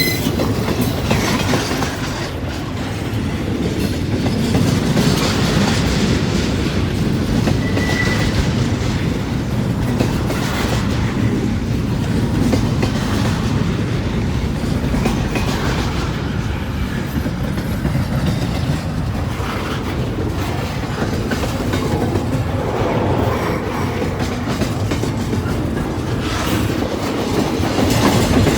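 Freight train cars rolling past, with a steady rumble and the clickety-clack of wheels over rail joints. A brief wheel squeal comes about eight seconds in.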